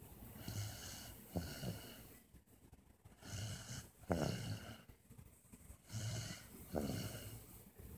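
Snoring during a nap: slow, even breaths, with three snores about two and a half seconds apart, each starting sharply and trailing off.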